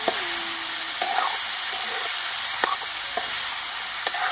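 Wild hen meat frying in masala in a metal kadai: a steady sizzle, with a few sharp clinks and scrapes of the metal spoon against the pan as it is stirred.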